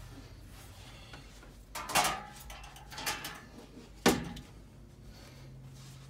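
Sheet-metal breaker panel cover clanking and rattling as it is lifted off: three knocks about a second apart, the last the sharpest.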